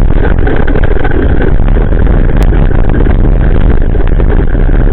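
Wind buffeting and tyre rumble from a bicycle rolling over a wet gravel road, picked up through a bicycle-mounted action camera's microphone: a loud, even rumble with no clear pitch.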